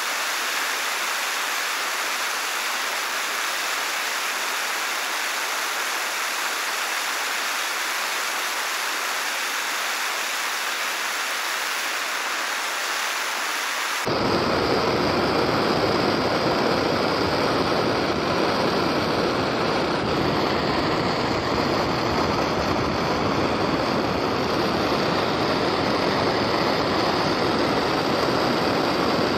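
Gas torch flame hissing steadily against a billiard 8 ball. About halfway through, the sound suddenly becomes louder and fuller, with a deep rumble added, and then runs on steady.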